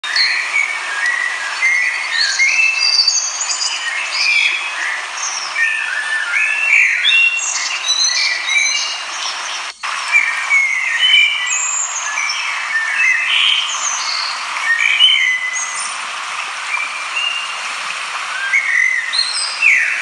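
Many small birds singing and chirping over the steady rush of a fast-flowing river. The sound drops out for an instant about halfway through.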